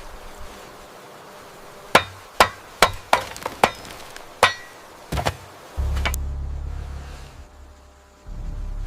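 Hammer blows: about eight sharp strikes in quick, uneven succession, one ringing briefly. They are followed by a low, steady rumble that fades, breaks off and starts again near the end.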